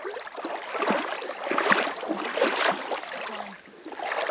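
Irregular splashing and sloshing of water, a string of small swishes and ticks that is busiest in the middle.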